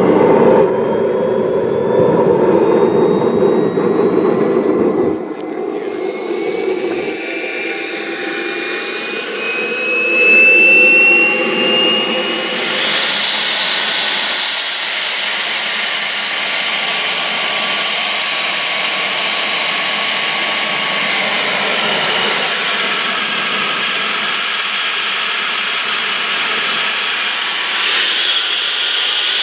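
Model jet turbine engine starting: a low roar for about the first five seconds, then a whine rising in pitch as the turbine spools up, settling after about thirteen seconds into a steady high whine at idle. The pitch rises again briefly near the end.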